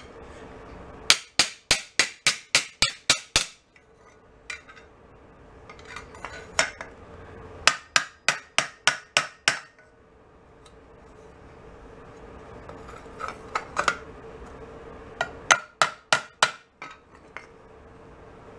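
Ball-peen hammer striking a steel motorcycle headlight bracket on an anvil, in several runs of quick, sharp metallic blows, about four a second, with pauses between. The blows are hammering out a bend the bracket took in a hit.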